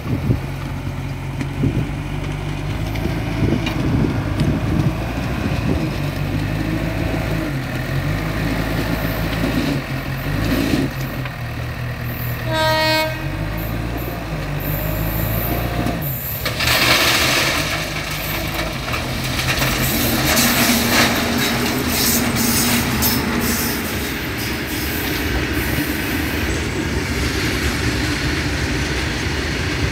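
Diesel engines of a tractor and a backhoe loader running, with a short horn blast about twelve and a half seconds in. About four seconds later comes a loud rush of stones pouring from the loader's bucket into the tractor's steel trolley.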